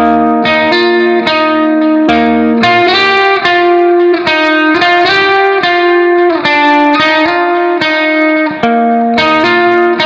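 Background music: a plucked guitar playing a melody of ringing notes, a new note every fraction of a second.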